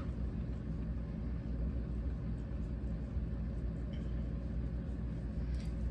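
Small electric motor of a rotating display turntable humming steadily as it turns.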